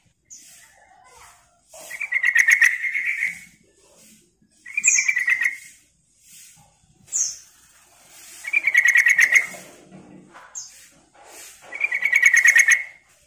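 Yellow-vented bulbul singing: four bursts of quick bubbly chattering notes, each about a second long and a few seconds apart, with short high notes between them.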